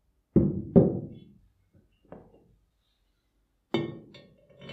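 Metal parts of a saw blade tooth setter knocking and clinking as they are handled: two loud knocks close together, a lighter one, then a sharper ringing clink near the end.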